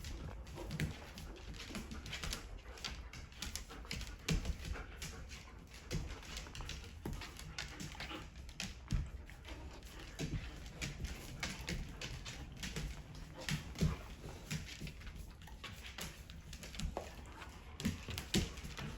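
Dogs whimpering and moving about, with many short, irregular clicks and knocks.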